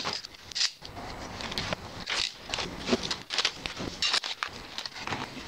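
Workshop handling sounds of bar clamps being fitted and tightened around a glued wood block, played back sped up eight times: a fast, irregular jumble of short clatters and rustles.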